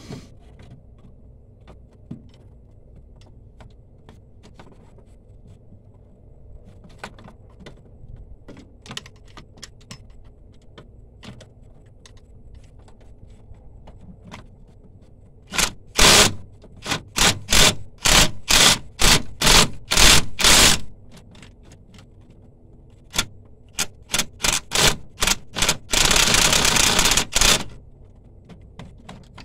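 Ratchet wrench working a fastener in a string of short loud clattering bursts, then one longer run of about a second and a half near the end, after light scattered tool clicks.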